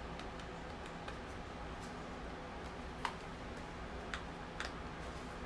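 Small plastic USB desk fan being handled, giving a few sharp, irregularly spaced light clicks (the clearest about three seconds in, then two more near the end) over a faint steady background hum.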